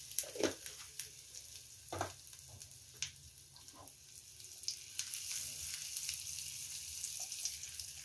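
Asafoetida (hing) sizzling and frothing in hot ghee in a nonstick frying pan as the pan is swirled over the gas flame, with a few light knocks. The sizzle grows louder from about five seconds in.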